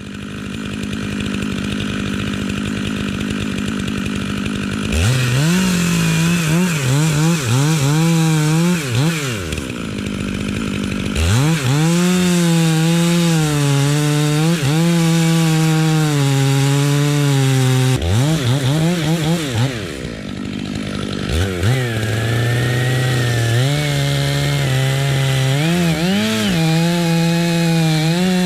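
Chainsaw idling, then revved up and cutting into the trunk of a tree being felled, its pitch sagging and recovering under load in several long cuts, with short drops back to idle about 10, 18 and 21 seconds in.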